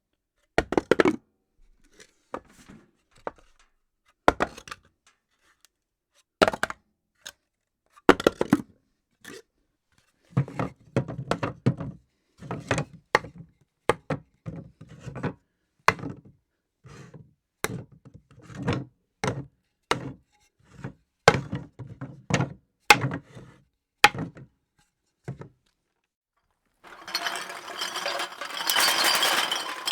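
Objects dropped one at a time onto a floor: about twenty separate thuds and knocks, several with a short rattle after them. A few seconds before the end, a dense continuous clattering starts as something is dumped out.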